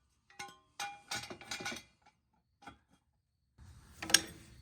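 Steel jack stand being set in place under the car: a few short metal clinks and knocks in the first two seconds, then a single sharp click near the end.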